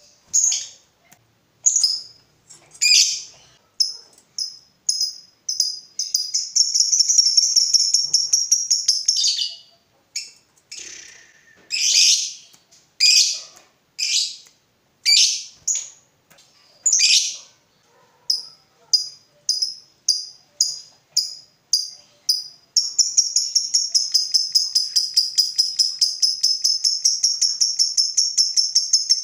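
Lovebird calling: sharp, high chirps, breaking into a rapid chattering trill (the long 'ngekek') about six seconds in for a few seconds, then chirping again before a second long ngekek trill over the last six seconds.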